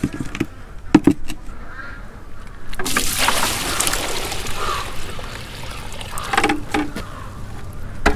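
A couple of knocks as a plastic bucket is set down on a cinder block. Then water is poured from a large plastic pail into the heated plastic water bucket, splashing steadily for about three seconds from about three seconds in.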